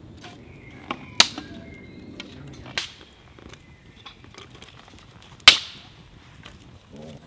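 Freshly lit campfire of kindling crackling, with three sharp, loud cracks about a second, three seconds and five and a half seconds in, and smaller ticks between them.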